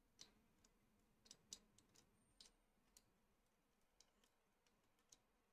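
Near silence with faint, irregular small clicks and ticks of thin coloured wires and their connectors being handled and fitted by hand.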